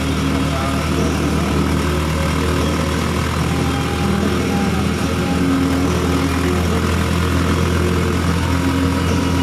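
Honda Supra Fit motorcycle's small single-cylinder four-stroke engine running steadily.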